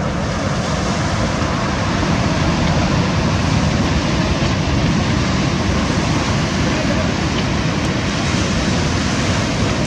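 Steady rush of ocean surf breaking and washing up onto a pebble beach, with wind buffeting the microphone.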